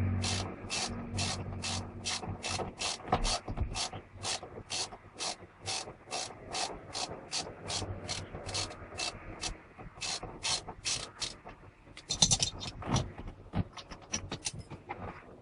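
Ratchet wrench being worked back and forth on a fastener, giving an even run of clicking bursts, about two a second, for some eleven seconds, then a few irregular knocks and scrapes near the end.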